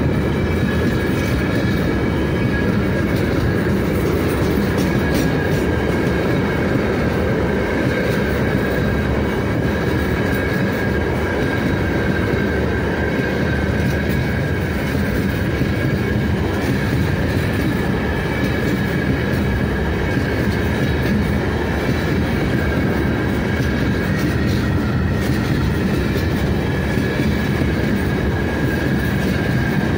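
Freight train's open gondola wagons rolling steadily past at speed: a continuous rumble of wheels on the rails, with a thin steady whine held over it.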